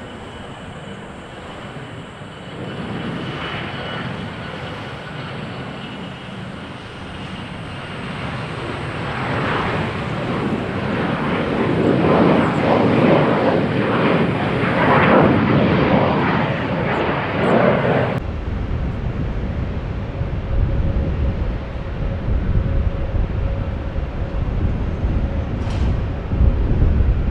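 Gulfstream G650ER business jet taking off, its twin Rolls-Royce BR725 turbofans at takeoff thrust. The jet noise swells steadily to a peak, then cuts off abruptly about two-thirds of the way through, leaving a low rumble with wind on the microphone.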